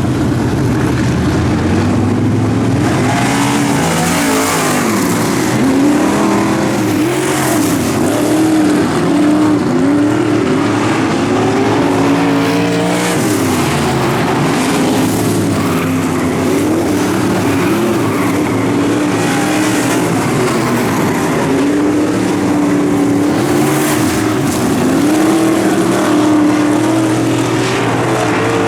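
Dirt track race car engine at full racing speed during hot laps, its pitch climbing and dropping again every few seconds as the driver gets on and off the throttle through the turns.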